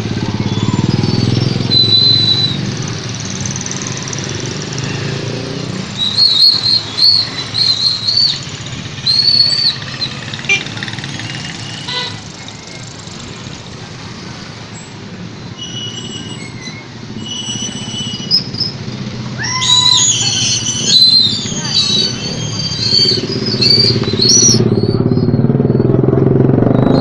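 Busy street traffic heard while riding through it: motorcycle and tricycle engines running, with high squeaky chirps and whistle-like tones coming and going through the middle and later part. It is loudest at the start and near the end.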